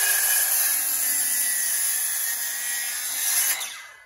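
Corded circular saw cutting into the end of a log: the motor's whine drops in pitch about a second in as the blade bites into the wood, then the saw stops near the end and the sound dies away.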